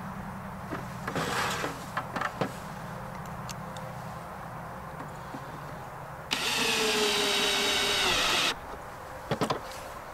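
A cordless drill drives a red plastic screw-in fitting into a plastic 5-gallon bucket, running for about two seconds with its pitch sagging slightly as the fitting snugs up. Light handling clicks and plastic knocks come before and after.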